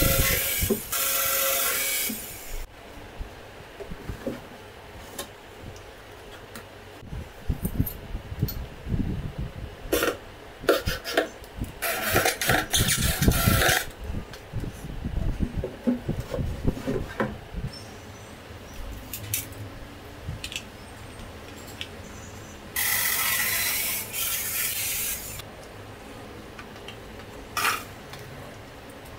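Cordless drill-driver running in short bursts of a second or two, driving screws into laminated particleboard drawer panels, with knocks and handling of the boards between the bursts.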